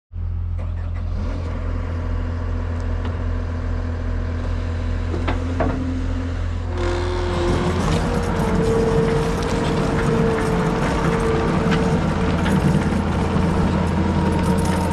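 Deere 333G tracked skid steer's diesel engine running steadily, then louder and higher-pitched from about seven seconds in as it is throttled up.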